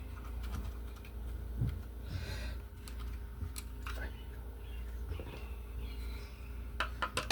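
Scattered light clicks and taps from small tools and parts being handled during outlet wiring work, a few together about three and a half seconds in and more near the end, over a low steady rumble.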